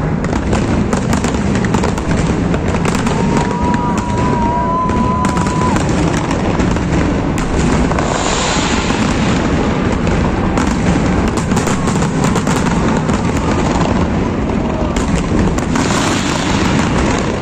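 Fireworks display: a dense, continuous barrage of shell bursts, booms and crackling. A single high whistle holds for about three seconds, starting around three seconds in.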